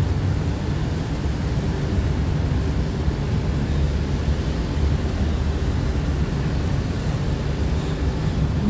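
Steady low rumble of city background noise, the kind made by distant traffic and building machinery, with a faint hum running through it.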